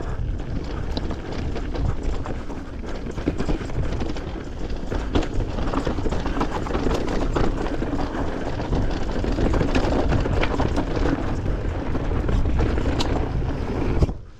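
Yeti 160E electric mountain bike ridden fast down a dirt singletrack: continuous tyre and trail noise with rapid chain and frame rattles over the bumps, and wind buffeting the camera microphone. The noise drops away briefly right at the end.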